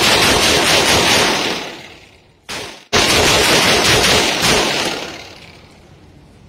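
Rapid fire from a .45-calibre 1911 pistol, the shots running together into one loud continuous blast. The first string fades out about two seconds in, a short burst follows, and a second string starts suddenly about three seconds in and fades out around five seconds.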